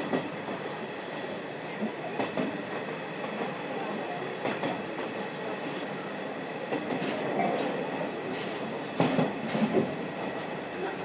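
Inside a JNR 50-series passenger coach with the window slightly open: the train runs with a steady rumble, its wheels clacking over rail joints every couple of seconds, with a louder cluster of clacks about nine seconds in. The coach is the last in the train and is pushed by the DE10 diesel helper locomotive, which supplies most of the power because the steam locomotive is ailing.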